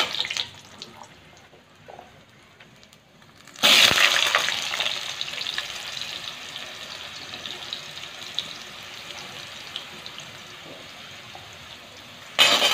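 Cubed potatoes tipped into hot mustard oil in a steel kadhai, bursting into a loud sizzle about four seconds in that slowly dies down. Before that there is only a faint sizzle of the tempering spices, and near the end the frying grows louder again as they are stirred.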